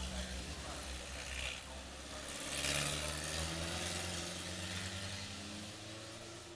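Pre-war vintage racing car engines running hard as the cars pass on a wet track. A louder pass about two and a half seconds in brings a hiss of tyre spray, and the engine note climbs as the car accelerates away. The sound fades near the end.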